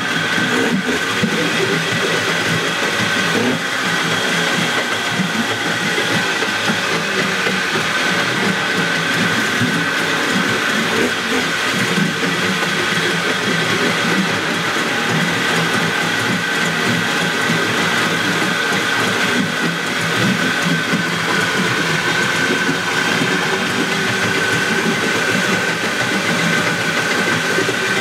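Spirit 20 HP outboard motor, a Suzuki rebadge, running steadily on about half choke. It is an old motor being brought back after sitting, with its low-speed mixture needle just opened to two turns.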